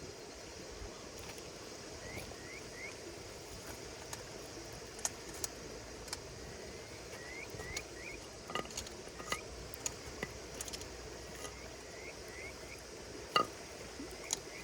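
Wood fire crackling, with irregular sharp pops and one louder snap near the end, over a steady night chorus of insects. Short rising chirps come in little runs of two or three.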